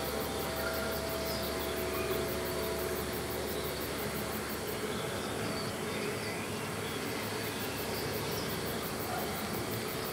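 A didgeridoo played as one steady, unbroken drone.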